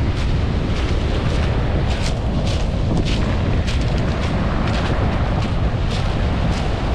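Strong wind blowing into the microphone: a loud, steady deep rumble with repeated short crackles, over the sound of sea surf breaking on the shore. It sounds like a fierce storm.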